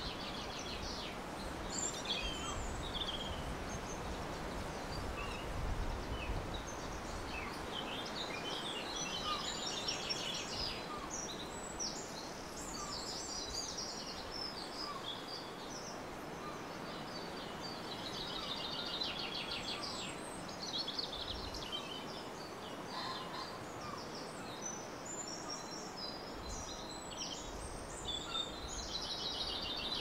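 Small songbirds twittering and calling, with short rapid trills scattered throughout, over a steady background hiss.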